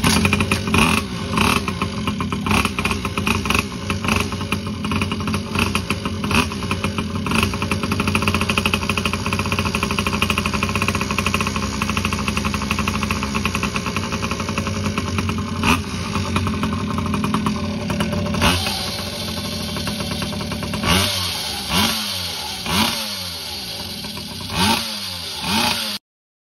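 Pocket bike's small two-stroke engine running, freshly restarted after two years in storage. It runs steadily at first; from about 18 seconds in it settles lower, and the throttle is blipped five times in quick revs before the sound cuts off.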